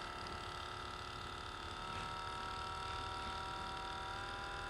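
Massage gun motor running with a steady buzzing whine, stepping up slightly in pitch about two seconds in and again near the end as its power level is raised.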